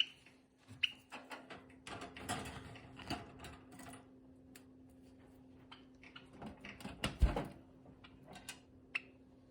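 Pet birds moving about in wire cages: scattered clicks and rattles on the cage bars and perches, with a few short high chirps and a louder thump about seven seconds in.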